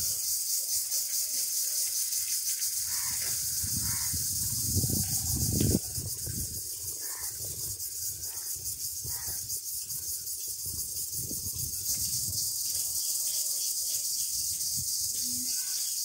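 Scissors snipping a rubber repair patch, giving scattered short clicks and rustles under a steady high hiss.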